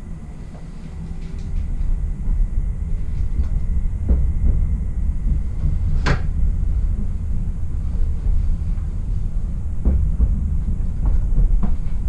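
SOB Traverso (Stadler FLIRT RABe 526) electric train running: a steady low rumble that grows louder about two seconds in, with scattered clicks and knocks, one sharp click about six seconds in.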